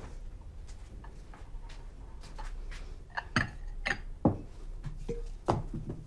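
Four sharp knocks and clinks of a glass and bottle being handled on a table, the loudest a little after four seconds in.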